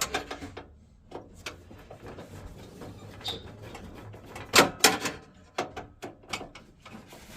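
Clicks and knocks of a screwdriver and small metal parts as screws are undone on a gas boiler's burner assembly, with a few sharper knocks about four and a half seconds in.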